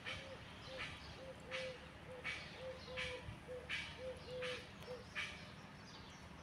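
Faint birdsong: a run of short, low hooting notes of uneven length, with a sharper chirp about every three quarters of a second.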